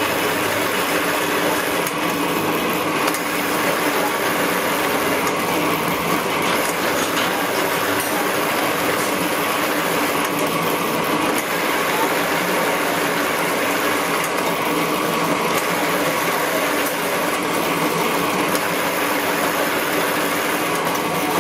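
Nut-tapping machine running steadily as its motor-driven spindle turns a tap that cuts threads in steel nuts, with a soft swell in the noise about every four seconds.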